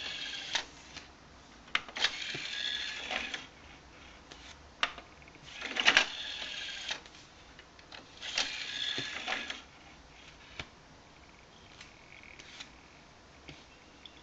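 Motorised CD tray and disc mechanism of a Panasonic SA-PM21 micro hi-fi whirring in several bursts of about a second each as the tray opens and closes, with sharp clicks of its front-panel buttons in between.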